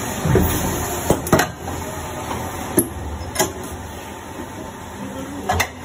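Injection moulding machine cycling a multi-cavity mould for 1 ml luer-lock syringe parts: steady machine noise with a handful of sharp clacks as the mould moves and opens.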